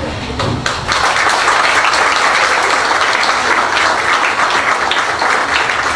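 Audience applauding: many hands clapping together, swelling within the first second and then carrying on steadily.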